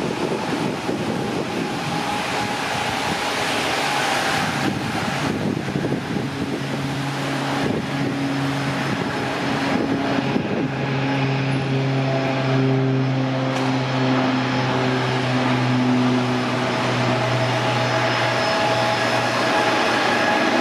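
Beech B200 Super King Air's twin Pratt & Whitney PT6A turboprops at takeoff power during the takeoff roll and liftoff. A steady propeller drone comes in about six seconds in and grows louder over a constant hiss.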